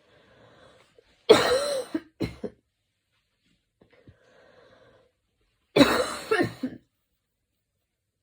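A woman coughing in two short fits about four seconds apart, each a loud cough followed by a couple of shorter coughs, with quiet breaths drawn in between.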